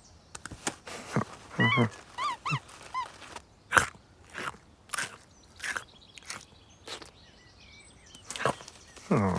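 Cartoon sound effects: a run of sharp taps and knocks, with a few short animal vocal sounds and a quick series of small chirps about two to three seconds in.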